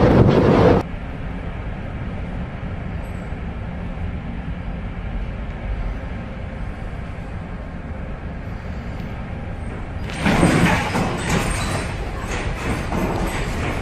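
Steady low rumble of a ship in heavy weather, broken about ten seconds in by a sudden loud rush of noise with crackling, as of wind and sea spray, that eases off again. Abrupt cuts between clips, one under a second in.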